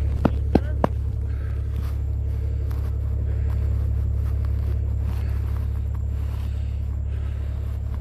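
Steady low rumble of car engines running on a snowy street, with three sharp clicks in the first second.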